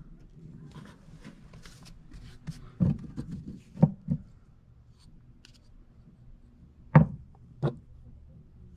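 A few sharp knocks and clunks as condensate drain line fittings and parts are handled: one about three seconds in, two in quick succession a second later, and two more about seven seconds in, the first of those the loudest.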